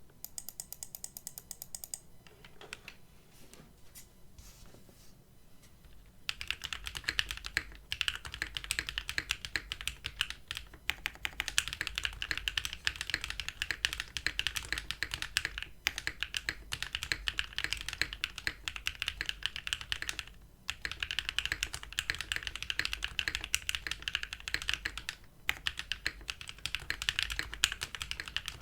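Mechanical keyboard with factory-lubed Bolsa Supply Laguna Blue linear switches on a POM half plate, under GMK keycaps, being typed on. Scattered, fainter keystrokes for the first few seconds, then fast continuous typing with a few brief pauses.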